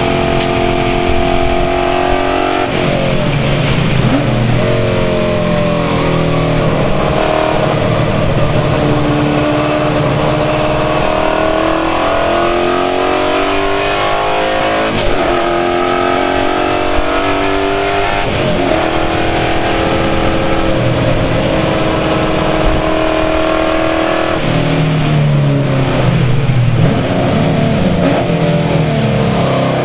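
Holden VH Commodore race car engine heard from inside the cabin at full racing pace, its pitch climbing hard under acceleration and dropping sharply at gear changes and braking several times.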